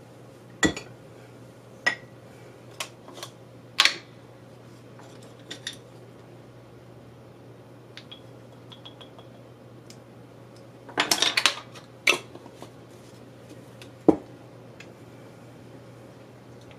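Metal measuring spoons and spice jars clinking and tapping against a stainless steel stockpot in a series of separate sharp knocks, with a quick rattling cluster about eleven seconds in. A faint low hum runs underneath.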